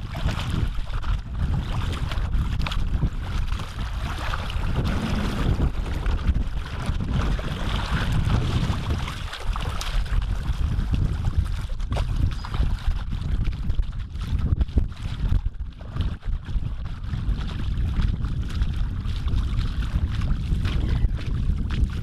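Wind buffeting the microphone, with the splashing of bare feet wading through shallow water.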